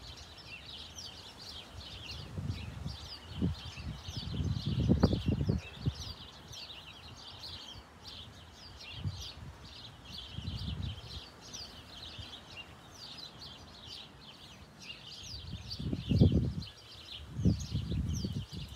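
Small garden birds chirping and twittering continuously in a busy chorus, with several low muffled rumbles coming and going, the loudest about five seconds in and again about sixteen seconds in.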